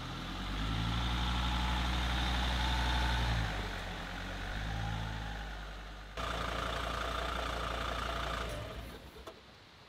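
Mercedes Sprinter van's engine running as the van drives slowly on a slippery snowy track, the engine note swelling and easing twice. About six seconds in it changes suddenly to a steadier running sound, which dies away shortly before the end.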